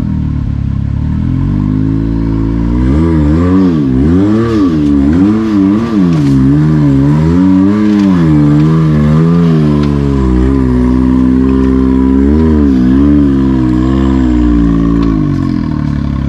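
Side-by-side UTV engine idling, then revved up and down over and over for about twelve seconds while crawling over an obstacle, settling back near the end.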